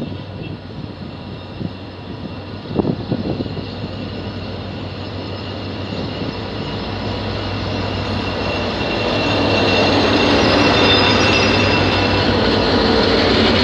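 Henschel diesel locomotive approaching and passing at walking pace. Its engine runs steadily and grows louder from about eight seconds in as the cab draws level, with a high whine over it near the end. There is a short burst of noise about three seconds in.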